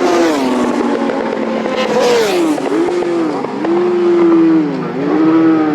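Road-racing motorcycle engine at high revs, its note dipping sharply and climbing straight back three times as it changes gear.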